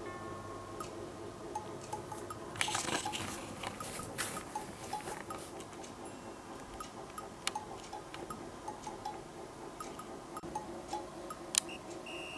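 Light, cute background music with a steady ticking beat. About three seconds in, a burst of rustling lasts a couple of seconds, and a few sharp clicks follow later.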